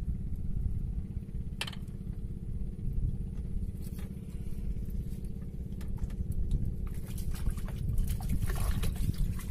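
A hooked fish splashing at the water surface about eight seconds in, over a steady low motor drone and hum. A sharp click sounds once or twice earlier.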